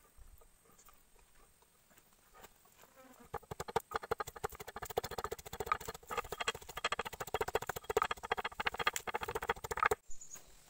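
Wooden pestle pounding garlic in a wooden mortar: rapid, steady knocks that start about three seconds in and stop abruptly near the end. Before the pounding there are a few light clicks as the garlic goes into the mortar.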